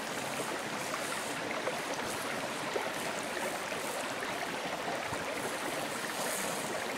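Pancake batter sizzling on a hot cast iron griddle over a campfire: a steady hiss that brightens as fresh batter is poured on, with a few faint crackles.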